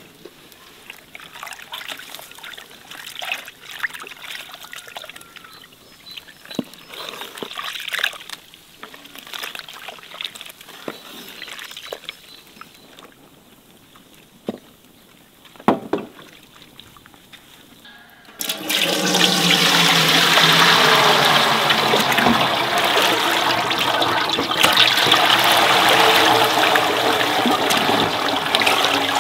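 Flour tipped from a metal scoop into a large aluminium pot of liquid, with small splashes and knocks. About two-thirds of the way through, a loud, steady rush of water or liquid in the pot starts suddenly and takes over.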